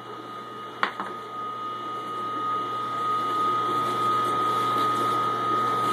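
Omega J8006 masticating juicer's motor running with a steady high whine and low hum as its auger crushes spinach and pushes out the pulp; a single short knock about a second in.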